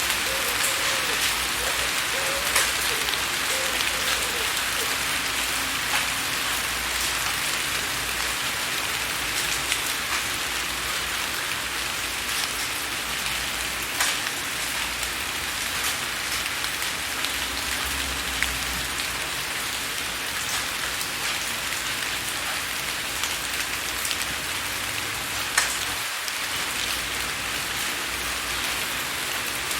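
Steady rain falling on window glass, an even hiss with single louder drop hits standing out every few seconds.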